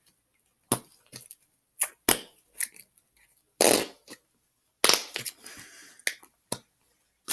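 Plastic slime containers being handled and closed: a string of sharp, irregular clicks and knocks of lids and tubs, with a couple of short rustling scrapes.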